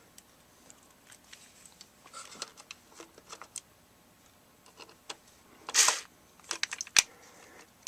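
Small clicks and rattles of screws and plastic parts being handled, then a short burst from a cordless drill-driver driving a screw about two seconds before the end, followed by a few sharp clicks.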